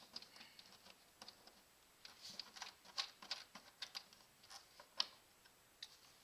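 Faint, irregular clicks and taps of a plastic engine cover being handled, worked loose and lifted off its mounts. The sharpest clicks come about three and five seconds in.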